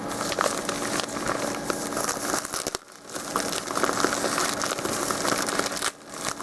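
Packaging crinkling and rustling as hands handle it and work at opening an inner package, with two brief pauses.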